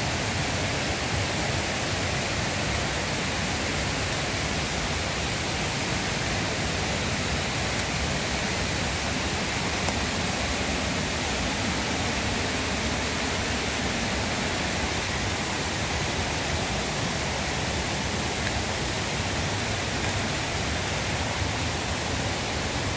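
Steady rush of a river running after heavy rains, an even roar of water.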